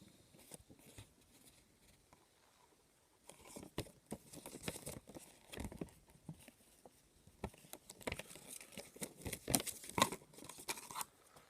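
Packaging crinkling and rustling as it is handled, with small clicks and taps. It starts about three seconds in and grows busier towards the end.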